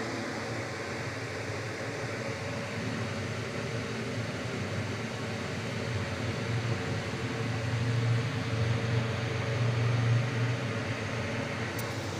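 Old National direct-cool refrigerator's compressor running after repair, a steady low hum that swells for a few seconds in the second half.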